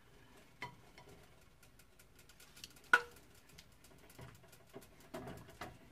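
Soft clicks and light rustling of fingers folding a thin egg roll wrapper on a plate, with one sharp click about three seconds in.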